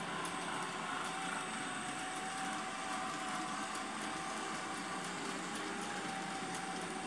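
TT-scale model train running on an analogue layout: the locomotive's small electric motor gives a steady whine that wavers slightly in pitch, over a rolling hiss of wheels on the track.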